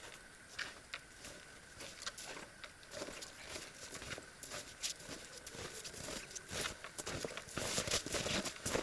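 Footsteps crunching in snow, faint at first and growing louder and more frequent as they come closer.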